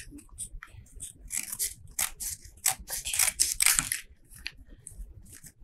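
Scissors snipping through paper and thin card, trimming a notebook's sheets and cover to size: a quick run of short cuts in the middle, with fainter snips around them.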